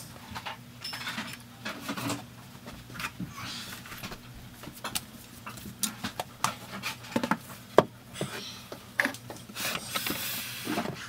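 Handling noise: scattered light clicks, knocks and rustles of things being moved and handled at close range, with a louder rustling swell near the end.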